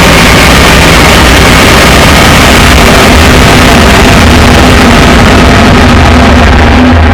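Shin Godzilla sound effect: a long, loud, harsh sustained blast with a heavy low rumble and steady grating tones layered through it, holding without a break.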